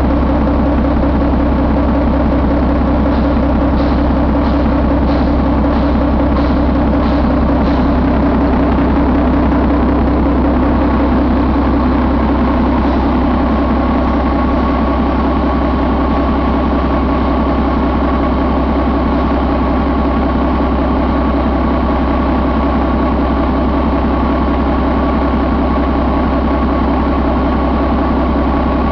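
Volvo D11 11-litre inline-six diesel engine running at a steady idle.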